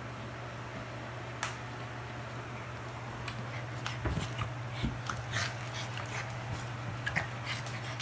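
Boston terrier puppy rummaging in its fleece dog bed and mouthing a ball-thrower stick: faint rustles and light clicks, with a couple of soft thumps about four and five seconds in, over a steady low hum.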